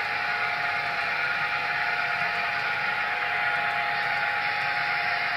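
Steady running sound of a four-unit N scale BLI Paragon EMD F3 model locomotive set pulling a hopper train, a continuous even whir with a few held tones.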